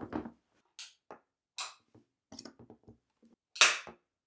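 Pulse spot welder firing through handheld copper probes to weld metal tabs onto new lithium-ion 18650 cells: a few sharp snapping cracks, the loudest near the end, with faint clicks of the probes being set in place between them.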